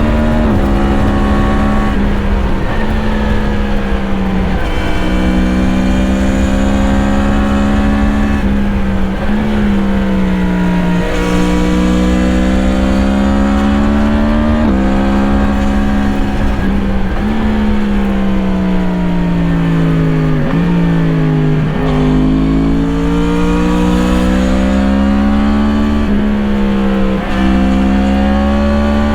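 2017 Yamaha MT-10's crossplane inline-four through an Akrapovič slip-on exhaust, revving up again and again as it accelerates. Each rise in pitch breaks off with a sudden drop at an upshift, and there are longer falling stretches as it rolls off and slows. Low wind rumble runs underneath.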